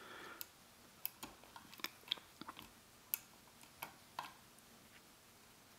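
Faint, irregular small metallic clicks and ticks of lock picks and tension wrench working the pins of a pin-tumbler lock cylinder fitted with security pins, about a dozen clicks spread unevenly.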